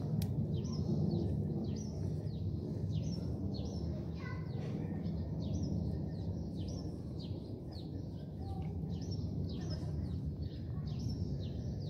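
Small birds chirping over and over, short falling notes about two or three times a second, over a steady low background rumble of street noise.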